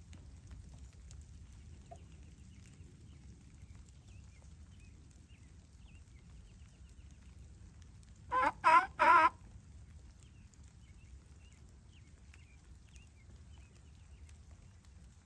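Wild turkey calling: three loud, wavering notes in quick succession over about a second, just past the middle. Faint small-bird chirps sound throughout.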